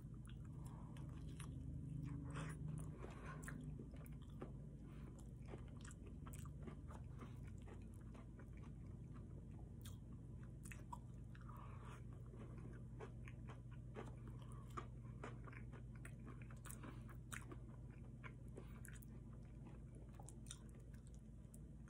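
Close-up eating sounds of a man biting and chewing breaded chicken tenders with mashed potatoes and gravy: many small irregular mouth clicks and smacks over a faint low hum.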